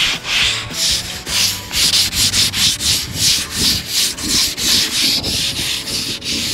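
Sandpaper rubbed by hand back and forth along the grain of a wooden tabletop: a steady run of short scratchy strokes, about three a second.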